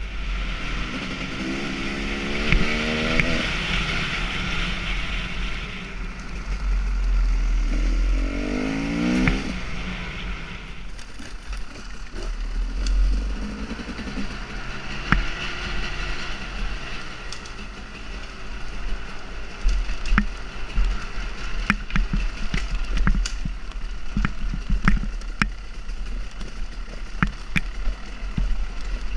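KTM 300 XC two-stroke enduro motorcycle being ridden off-road: the engine revs up twice in the first ten seconds, then runs at lower, steadier revs. From about twelve seconds on, frequent sharp knocks and clatter come from the bike jolting over the rough trail.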